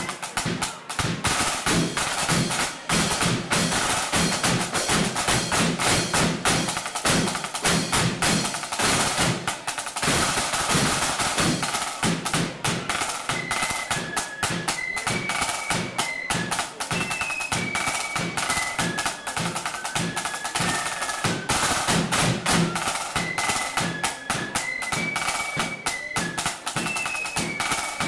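A marching flute band playing. Rapid snare drumming runs throughout, and the flutes come in with the melody about halfway through.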